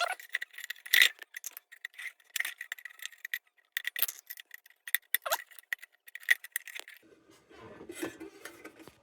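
Tin lantern parts being handled and worked: a run of sharp metallic clicks, clinks and rattles, some with a brief ring, then softer scraping and handling noise near the end.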